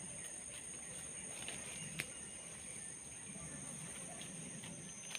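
Steady, high-pitched drone of forest insects, with one sharp knock about two seconds in and faint low voice-like murmuring underneath.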